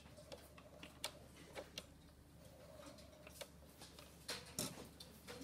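A few faint clicks and taps of a drawing compass being handled and lifted away from a paper drawing sheet.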